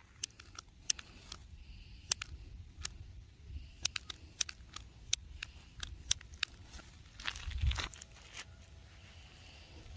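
Irregular sharp crackles and rustling of dry leaves, pine needles and the stiff, charred edge of a quilted fabric placemat as it is lifted and turned over with a stick, with a louder rustle and a low thump about seven and a half seconds in.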